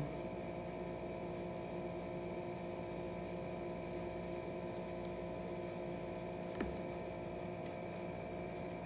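Steady background hum made of several held tones, with one faint click about six and a half seconds in.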